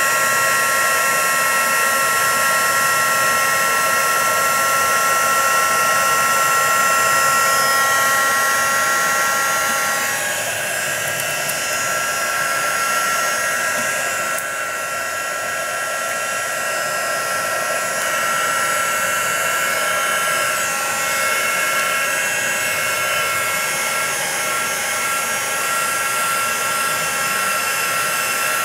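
Craft heat tool (embossing heat gun) blowing steadily, with a whine of several steady tones that shifts about ten seconds in. It is warming the masking tape so the tape lifts off the watercolour paper without tearing it.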